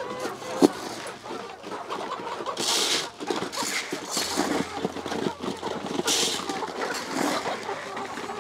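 A feeding flock of Rhode Island Red, Dominant CZ and native chickens clucking and pecking while feed is scattered by hand from a bucket, with two short rushes of feed hitting the litter, about two and a half and six seconds in. A single sharp knock under a second in is the loudest sound.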